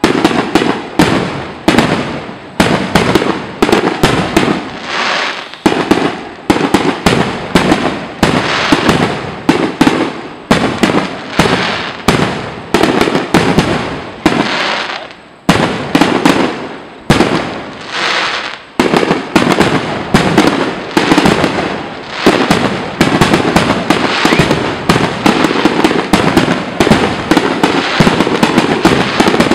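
Aerial firework shells bursting in a dense barrage: sharp bangs one after another, often several a second, over continuous crackle, with only a couple of brief lulls.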